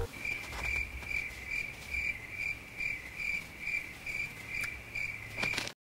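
A cricket chirping in an even rhythm, about two to three chirps a second, cutting off abruptly near the end.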